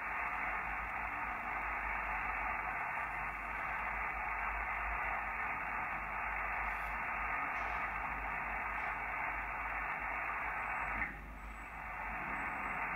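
Steady band hiss from an Icom IC-7000 HF receiver tuned to 20-metre upper sideband with no one transmitting: narrow, filtered static with no voice in it. The hiss dips briefly about eleven seconds in, then returns.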